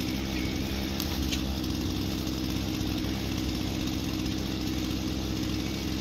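An engine idling steadily, a low, even hum.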